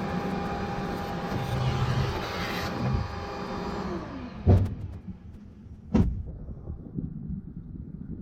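An electric motor running steadily with a whine and hiss, switched off about four seconds in and winding down quickly. Two loud knocks follow, about a second and a half apart.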